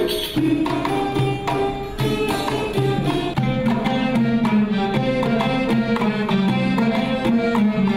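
Ouds playing a melody together in quick plucked notes.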